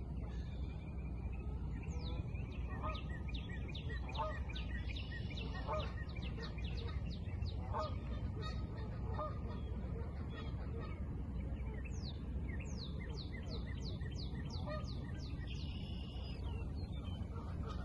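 Geese honking in scattered calls, with small birds chirping in quick falling notes, including a rapid run of them about two-thirds of the way through, over a steady low rumble.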